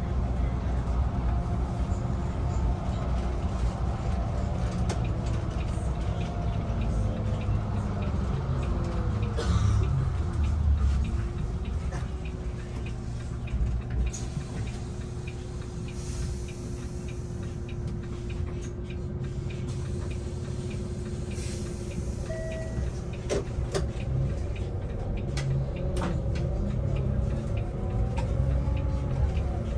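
Inside a bus as it drives: a steady low rumble of drivetrain and road noise. A motor tone falls in pitch as the bus slows, then holds steady for a while, with a few clicks and rattles from the cabin.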